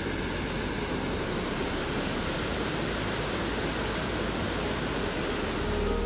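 Waterfall rushing: a steady, even roar of falling water with no rhythm or breaks.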